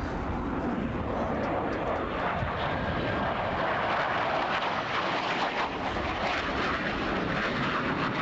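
Jet noise from a Grumman F-14A Tomcat's twin TF30 turbofan engines as it makes a fast, low pass. The rush is steady and grows a little louder about halfway through.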